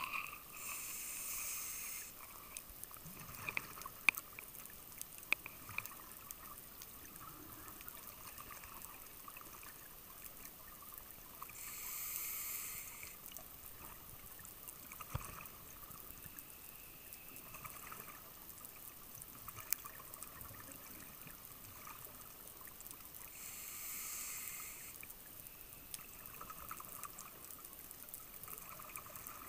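Scuba diver breathing underwater: three bubbly rushes of exhaust bubbles from the regulator, each about a second and a half long and roughly eleven seconds apart, one with each exhale. Fainter hiss and scattered sharp clicks come between the breaths.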